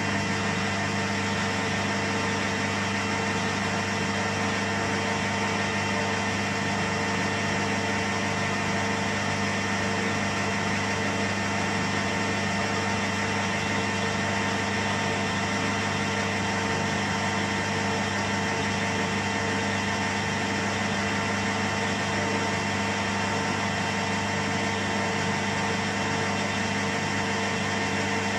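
Metal lathe running steadily with a constant motor and gearing hum, turning a small workpiece down on a light finishing cut to its final diameter.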